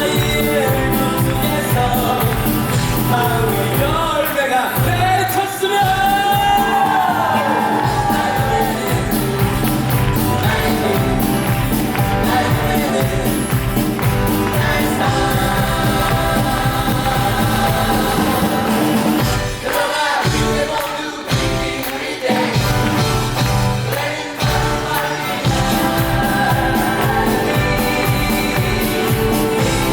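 Live band playing an upbeat pop-rock number with singing over it; the voice slides up and down on long notes about four to eight seconds in.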